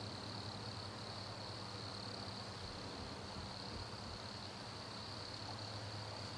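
Wood crickets (Nemobius sylvestris) singing: a faint, steady, high-pitched song that runs on without a break, over a low steady hum.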